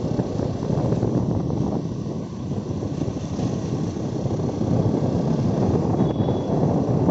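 Steady low rumble of wind buffeting the microphone, mixed with road noise, while travelling along a street at speed.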